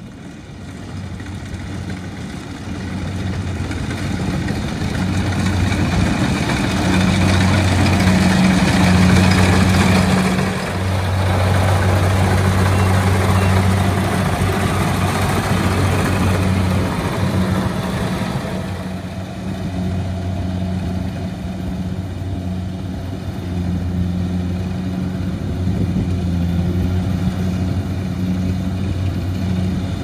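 Kubota DC-70 rice combine harvester running as it cuts rice: a steady diesel engine drone under a broad mechanical rattle. It grows louder over the first few seconds, and the higher rattle drops away about two-thirds of the way through.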